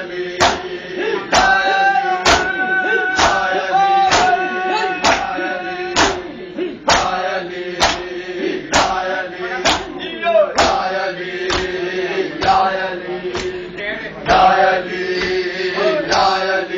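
Men chanting a Shia noha lament in unison, with the group beating their bare chests in time (matam): sharp, loud hand slaps on flesh about once a second.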